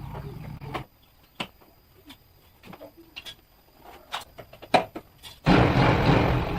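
Scattered clicks and knocks, then about five and a half seconds in the Yamaha Jupiter MX's small single-cylinder four-stroke engine comes in loud and revving, the restored bike running again.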